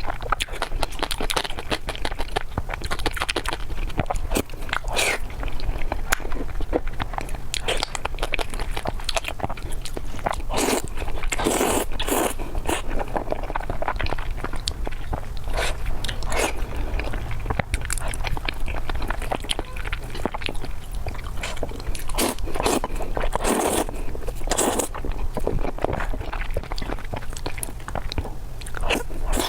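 Close-miked eating sounds of eel being bitten and chewed, with irregular sharp mouth clicks and smacks, over a steady low hum.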